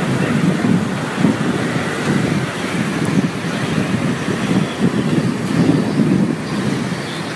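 Strong wind gusting and buffeting the microphone: a dense rushing noise that swells and dips unevenly.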